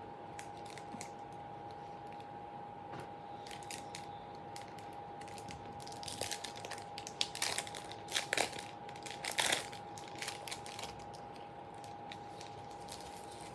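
A trading-card pack wrapper being torn open and handled, with scattered short crinkles and crackles, most of them in the middle stretch. A faint steady high hum runs underneath.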